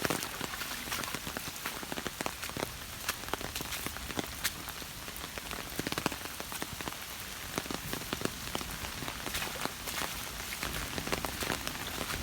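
Steady rain: a constant hiss with many sharp, irregular drop hits close to the microphone.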